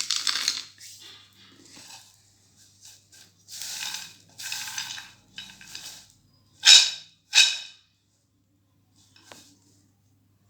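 Roasted peanuts rustling and rattling on a plate as they are rubbed and tossed by hand to loosen their papery skins. This comes in short bouts, with two sharper, louder bursts a little after the middle.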